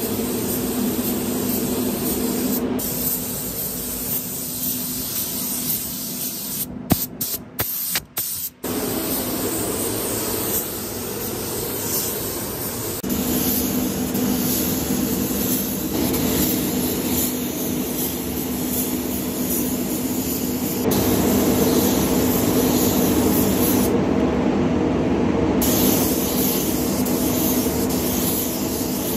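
Air-fed paint spray gun hissing steadily as it sprays primer onto a car body shell, over the steady hum of a spray booth's air system. The sound drops out briefly a few times about seven to eight seconds in.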